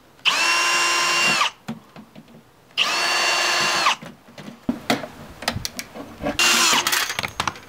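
Cordless drill/driver running in two bursts of about a second each, a steady whine that winds down at the end of each, backing screws out of a subwoofer's back panel. After the bursts come scattered metal clicks and rattles, with a third, shorter burst near the end.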